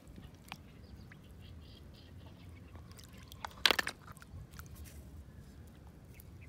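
Freshwater snail shells clattering against each other and the plastic as a handful is dropped into a bucket: one short, loud clatter about three and a half seconds in, with a few faint clicks before and after.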